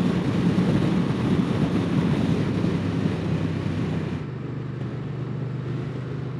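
Moto Guzzi V100 Mandello's transverse V-twin running under a rush of wind, heard from the saddle as the bike slows. About four seconds in the wind noise drops away and the steady engine note is left.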